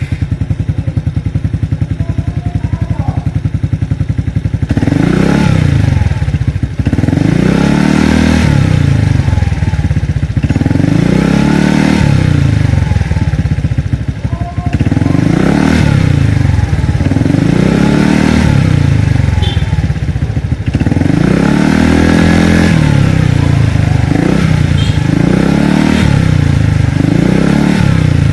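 Suzuki Skydrive 125 scooter's single-cylinder four-stroke engine breathing through an aftermarket dK power pipe exhaust, idling steadily at first and then, about four seconds in, revved up and let fall back again and again, roughly once every two seconds.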